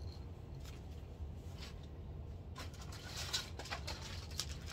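Faint rustling and soft clicks of floss skeins and fabric being handled, over a steady low hum.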